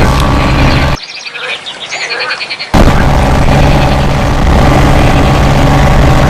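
A steady engine drone, broken off abruptly about a second in; for under two seconds frogs croak in quick pulsed trills, then the engine drone cuts back in.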